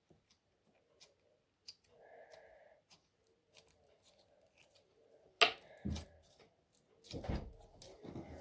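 Scattered small clicks, one sharp loud click about five seconds in, then a stretch of denser rustling and crackling, as slime-making materials are handled.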